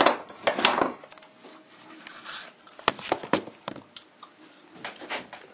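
Scattered sharp clicks and knocks, about seven, as the partly rebuilt bottom end of a Honda XR80R engine is handled and set down on a hard surface.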